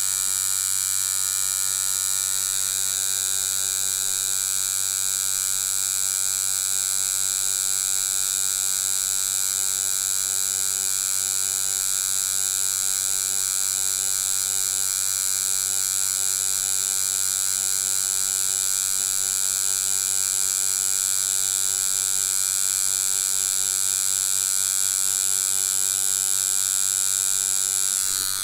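Deki Irons Sensei rotary tattoo machine running steadily at about 6 volts, a constant electric buzz, while its 9-round magnum packs black ink into practice skin.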